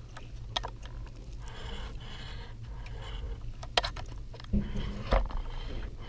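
A coin scratching the latex coating off a scratch-off lottery ticket in short repeated strokes. A few sharp taps and knocks come in the second half.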